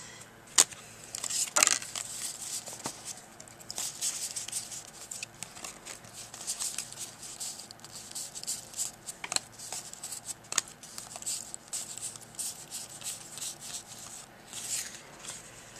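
Yu-Gi-Oh trading cards being sorted through by hand, with irregular rustles and short flicks of card sliding on card.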